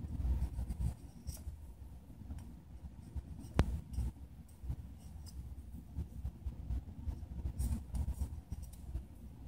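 Utility-knife blade scraping and cutting along the edge of a PS3 chip's integrated heat spreader, working through the sealant that holds the lid on: a continuous scratchy rubbing with a single sharp click about three and a half seconds in.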